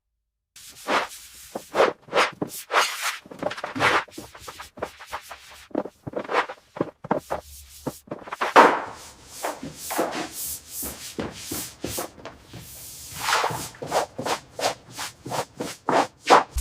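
A fast, irregular run of swishes and sharp knocks, dozens in quick succession.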